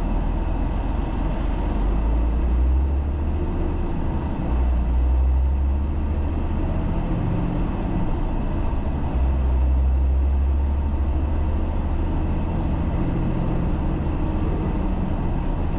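MAN 4x4 truck's diesel engine running on the move, a deep rumble with road noise that swells a little around three, five and ten seconds in.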